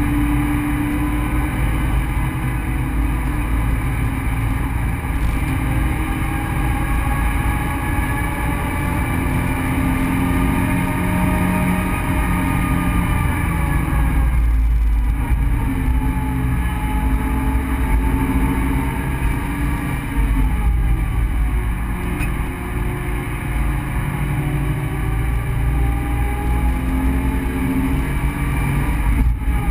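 Subaru BRZ's 2.0-litre flat-four engine, heard from inside the cabin, pulling up through the revs under acceleration. The pitch cuts out briefly about halfway through, sags a little later and then climbs again, all over a steady rumble of road and wind noise.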